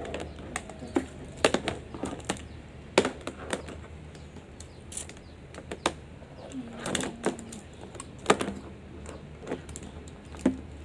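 Irregular clicks and knocks of hard plastic and metal ring light stand parts and cables being handled and fitted together by hand, with two sharper knocks about three seconds in and again about eight seconds in.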